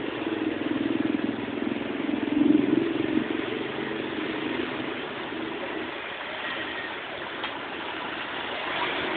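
A motor vehicle engine idling close by, loudest in the first three seconds and then fading away, over a steady background hiss.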